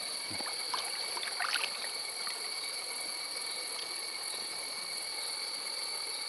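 Water trickling and dripping as a wet gill net is hauled up out of the water by hand, with a few small splashes in the first two seconds. A steady high-pitched drone runs underneath.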